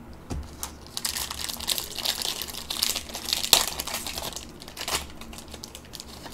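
Plastic wrapper of a 2021-22 Panini Prizm basketball card pack crinkling as it is torn open by hand, with a sharp crackle about three and a half seconds in.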